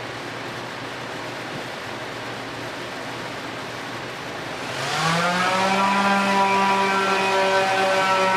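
A steady rushing noise, then about five seconds in an electric shop-tool motor starts up. It rises in pitch and settles into a steady whine.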